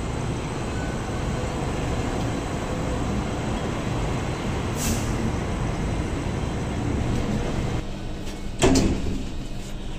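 MTR Light Rail Phase I light rail vehicle running into the stop and slowing to a halt: a steady rumble of wheels and traction gear, with a short hiss of air about five seconds in. Inside the car, a steady hum, then a short loud clatter near the end as the sliding doors close.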